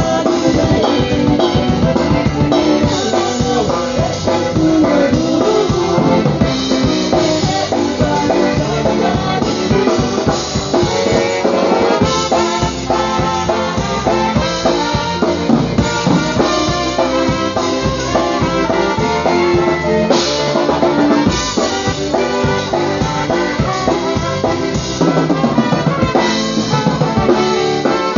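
Live polka band playing dance music, with a drum kit keeping a steady beat under brass.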